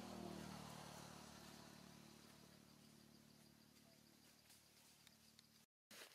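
Near silence: faint outdoor background with a thin, steady high tone and a low hum that fades away, broken by a brief dropout near the end.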